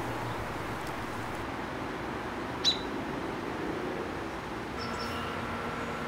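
American robin giving a single sharp, high, downward-slurred alarm note about two and a half seconds in, with a fainter short note near five seconds, over a steady hiss. A steady low hum comes in near the end.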